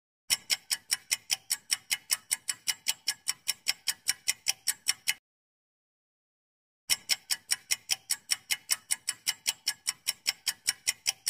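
Countdown timer sound effect: fast, even clock ticking, about six ticks a second. The ticking stops dead about five seconds in and starts again nearly two seconds later.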